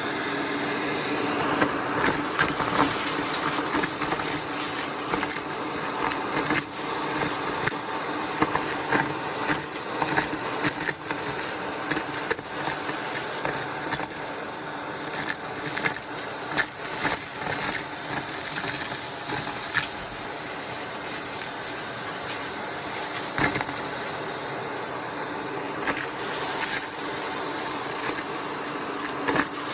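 Vacuum cleaner running steadily through its crevice tool, with irregular crunching and rattling crackles as grit and debris are sucked up the nozzle.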